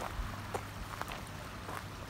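Footsteps on dry leaf litter and twigs: a few irregular steps over a steady low rumble of wind.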